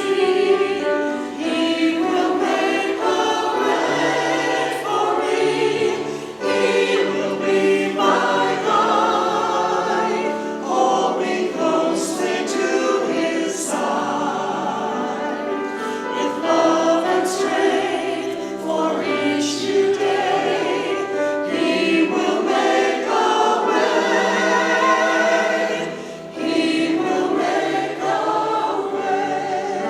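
A choir singing a sacred song, several voices together in continuous phrases, with brief breaks about six seconds in and again a few seconds before the end.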